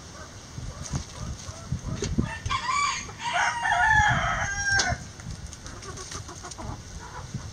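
A rooster crows once, a call of about two and a half seconds that starts about two and a half seconds in, over quieter hen clucking and low thumps.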